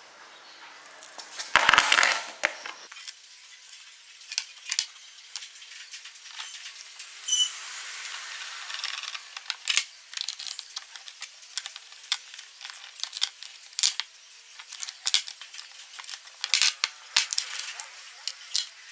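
Small steel ball bearings, washers and a bolt clinking and tapping against each other and the workbench as they are handled, with a louder rattle about two seconds in and one short ringing clink near the middle.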